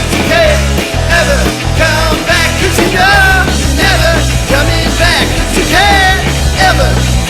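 Rock music with a sung vocal, loud and driving, with a heavy bass line.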